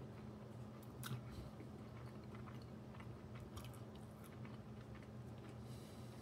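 A man chewing a mouthful of a breakfast sandwich, faint, with a few soft mouth clicks, over a steady low hum.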